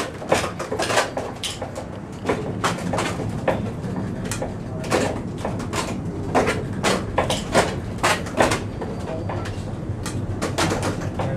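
Irregular knocking and clattering, several sharp knocks a second, over a steady low rumble inside a working windmill.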